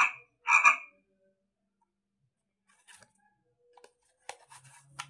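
Pink talking flash-card toy plays two short frog croaks through its small speaker. About three seconds in come light plastic clicks and scraping as a card is slid out of its slot and another is pushed in.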